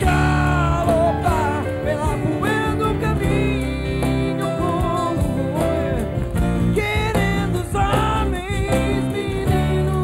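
Live acoustic rock band playing: strummed acoustic guitars with Kurzweil keyboard chords underneath, and a male voice singing a wavering melody line.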